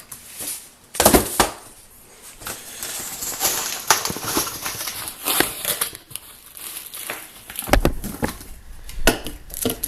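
Packaging being handled during an unboxing: crinkling and rustling, broken by a few sharp knocks and taps.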